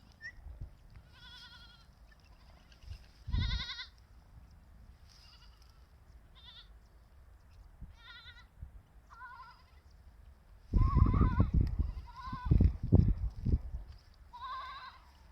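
Goats or sheep bleating, about eight separate quavering calls from more than one animal. A loud low rumble runs under the calls about two-thirds of the way through.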